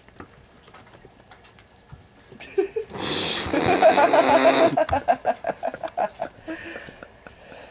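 Two cats play-fighting. Soft scuffling early on, then about three seconds in a loud, noisy hiss-like burst, followed by a pulsing, fading yowl.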